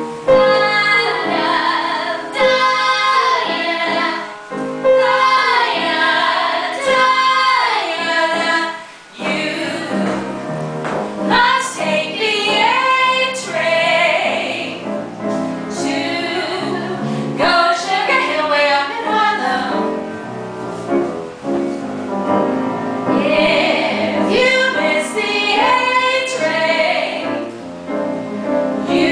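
Three women singing a song together with piano accompaniment, in short phrases with a brief break about nine seconds in.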